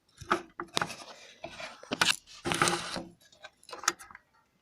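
A thin piece of wood handled against a bandsaw's table and blade with the saw not running: a run of irregular clicks, rubs and scrapes with a few louder knocks about two seconds in.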